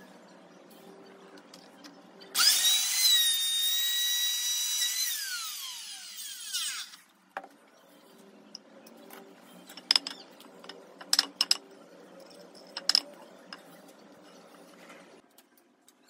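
Black+Decker electric plunge router starting up with a high whine, running steadily for about two and a half seconds, then switched off and spinning down with falling pitch. A few sharp knocks follow later.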